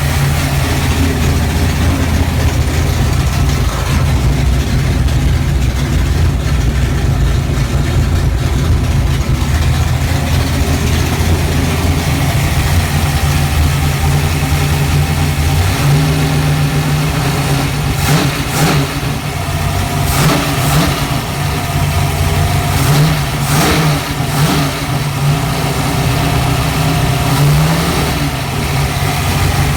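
Freshly rebuilt 408 cubic-inch Windsor small-block Ford V8 running on one of its first runs after installation, mostly a steady idle. The engine note shifts about halfway through, and a few short sharp knocks sound over it in the second half.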